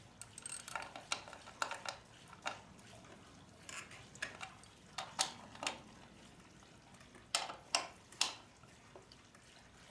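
Metal hand tools clinking and clanking, about a dozen sharp, irregular strikes, while working on the rear axle hardware of a Honda XR650R dirt bike.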